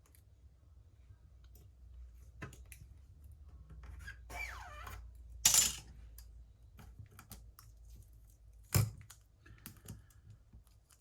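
Small handling noises of hand tools and adhesive tape on a repair bench: scattered light clicks and taps, a brief scraping rustle about five and a half seconds in, and a sharp tap near nine seconds.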